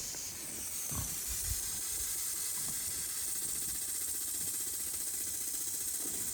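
Water spraying from a garden hose as a fine mist, giving a steady high hiss. There are a couple of soft low thumps about a second in.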